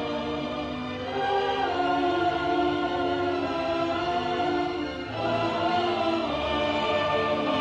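Orchestral film score with a choir singing long held notes, part of the main title theme. The music dips briefly about five seconds in, then swells again.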